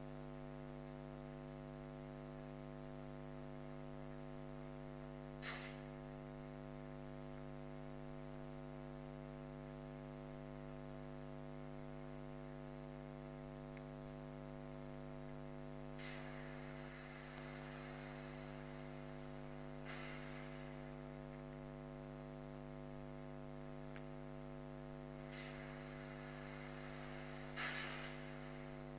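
Steady electrical mains hum with its overtones. A few brief faint noises come through about five seconds in, around sixteen and twenty seconds in, and twice near the end, the last one the loudest, with a single click about twenty-four seconds in.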